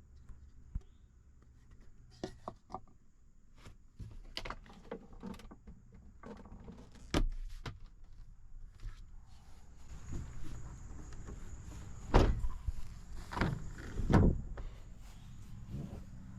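Scattered knocks and thumps, with a few louder thuds close together near the end.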